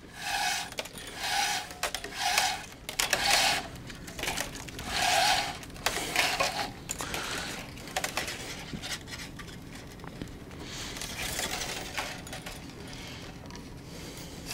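Tennis string being pulled by hand through a racquet's main strings while a cross is woven: a run of about six short zipping rubs in the first seven seconds, then fainter rubbing.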